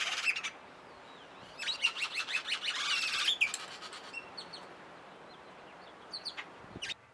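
Small birds chirping: a short burst at the start, a dense run of rapid chirps from about one and a half to three and a half seconds in, then a few scattered chirps near the end.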